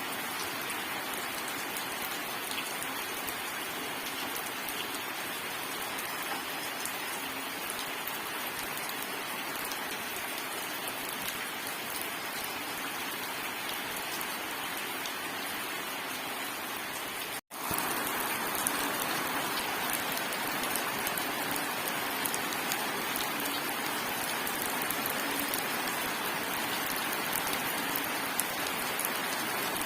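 Steady rain falling: an even hiss with scattered drop ticks. It cuts out for an instant about 17 seconds in and comes back slightly louder.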